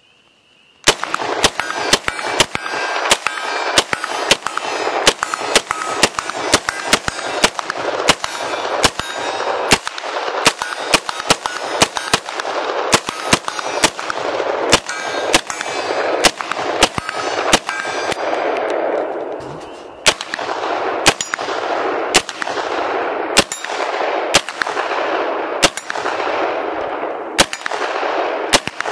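Sig Sauer MCX Rattler short-barreled rifle firing a long string of semi-automatic shots, about three a second at first and then slower after a brief pause, with each shot's echo ringing on into the next.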